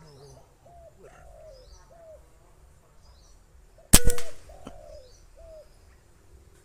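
A single PCP air rifle shot about four seconds in, a sharp crack with a short metallic ring. Around it, doves coo over and over in short phrases while small birds chirp.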